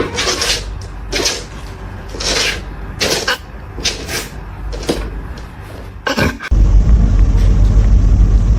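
A cat hissing in about seven short, sharp bursts, a defensive warning at something it takes for a threat. About six and a half seconds in, it cuts off and a loud, steady low rumble takes over.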